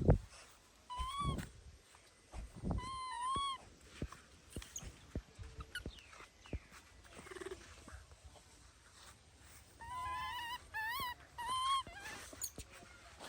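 Baby monkey giving high, arching calls in short groups: one around a second in, another around three seconds in, and a run of several near the end. Soft clicks and taps fall between the calls.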